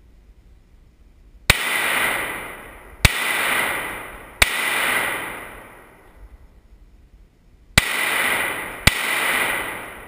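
Five pistol shots fired one at a time, each followed by a long echo that dies away over about a second inside a rock tunnel. The shots come about a second and a half apart, with a longer pause of about three seconds after the third.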